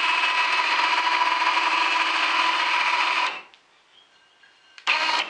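Stegodon 3000 lb electric winch motor running steadily, reeling its rope back in under remote control. It stops about three and a half seconds in, then runs again briefly near the end.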